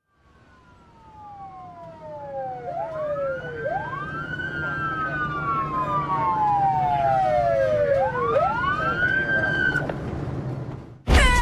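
Emergency-vehicle sirens wailing, two slightly out of step, each sliding slowly down in pitch and sweeping quickly back up. They grow louder as they approach and cut off suddenly near the end.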